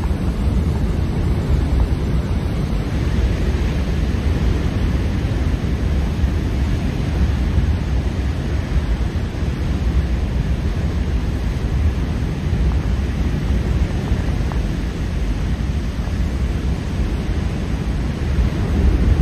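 Heavy storm surf breaking along the shore and around a pier, a steady low rumble of crashing water mixed with wind buffeting the microphone.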